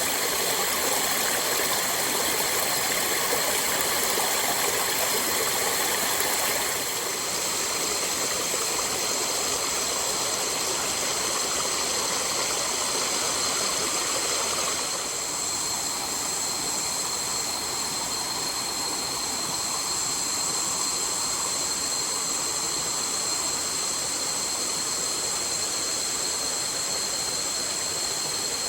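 Rushing water of a jungle waterfall, a steady even rush of noise with thin steady high-pitched tones above it. The level steps down slightly about seven seconds in and again about halfway through.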